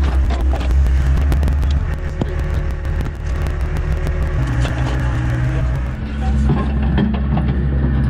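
Heavy construction machine's engine running with a steady low hum that eases off about two seconds in and picks up to a higher note about six seconds in, as under changing load, with scattered knocks and clicks.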